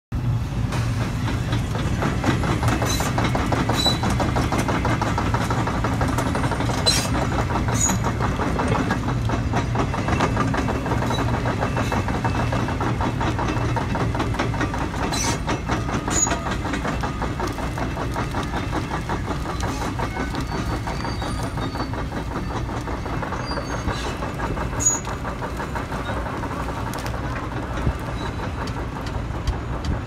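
Tracked excavator's diesel engine running steadily as it travels, its steel tracks clanking with sharp squeaks now and then, while a felled tree trunk held in its grapple drags and scrapes through the dirt. The engine's low hum grows weaker about halfway through as the machine moves off.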